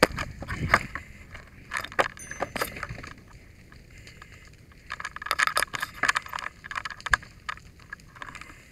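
Rattling and clinking of a firefighter's gear and metal hand tools (halligan bar and hook) as he handles them and moves about, with sharp knocks in the first second and a busier stretch of jangling about five seconds in.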